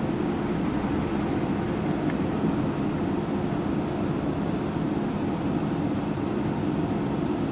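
City bus driving along, heard from inside the cabin: a steady low rumble of engine and road noise.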